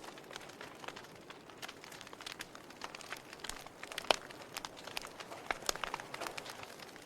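Wood fire burning, crackling with irregular sharp pops and snaps over a soft steady hiss, one louder pop about four seconds in.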